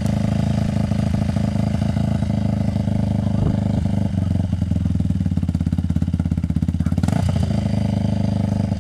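Yamaha WR426F's single-cylinder four-stroke engine idling steadily with an even thumping pulse, with a brief rise in pitch about seven seconds in.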